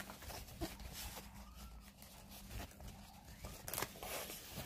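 Faint rustling and crinkling of packaging being handled and put away, with a few sharper rustles near the end.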